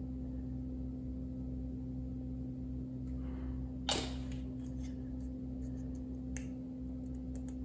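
Steady low electrical hum of room tone. About four seconds in there is one sharp click as the plastic applicator cap goes back onto the glass glue bottle, and a few faint ticks of plastic model parts being handled follow.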